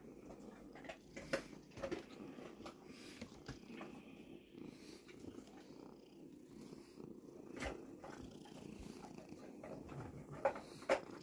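Grey tabby cat purring steadily right against the microphone, with scattered soft clicks.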